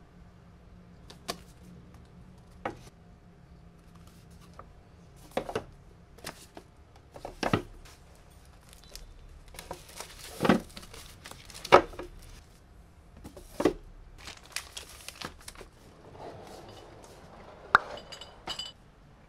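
Household objects being handled and set down: scattered separate knocks and taps, the loudest in the middle, with a short clinking rattle near the end.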